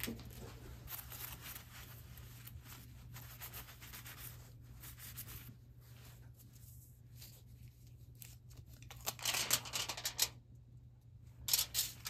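Faint rubbing and rustling as kitchen-litho aluminium foil and a paper towel are handled. There is a louder stretch of rustling about nine seconds in and again near the end.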